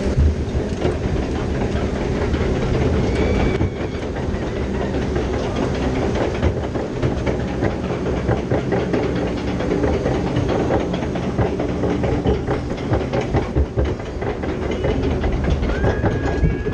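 Log flume boat clattering along the ride: a steady mechanical rattle and rumble with dense clacking, over rushing water.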